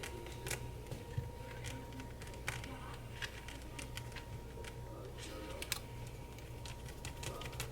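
Irregular light clicks and taps of small parts and tools being handled on a laptop under repair, over a steady low hum.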